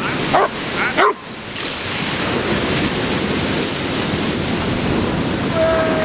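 A dog barks twice in quick succession, then breaking surf rushes steadily on the shore.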